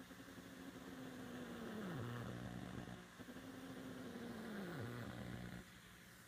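Interference buzz from stereo speakers: a pitched hum that holds, then slides down in pitch, repeating twice about three seconds apart in step with the tube tester's curve sweeps. It is RF noise from the Sofia curve tracer's screen supply, running a dual-triode test on a 12AX7, getting into the stereo system.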